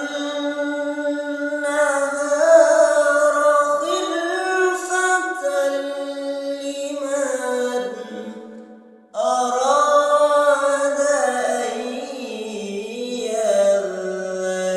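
Quran recitation: a single voice chanting in long, ornamented melodic phrases, with a brief break about nine seconds in before the next phrase.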